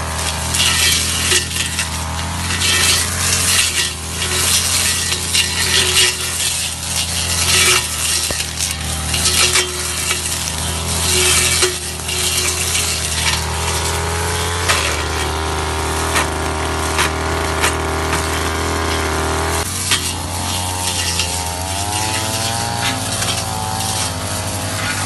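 Ogawa backpack brush cutter's small two-stroke engine running at high speed while its blade thrashes through tall grass and brush, with a constant crackle of cut stems and debris. About two-thirds of the way through the sound changes abruptly, and the engine pitch then wavers up and down.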